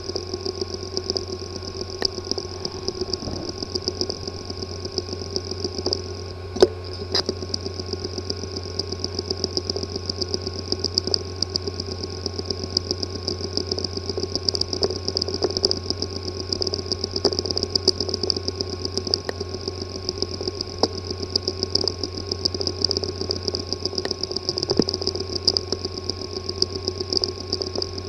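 Hard drive with a physically damaged disk assembly running with a steady hum and whine, broken by rapid, irregular ticking and one sharper click about six seconds in. This is the clicking and buzzing of a drive whose heads or platters are damaged.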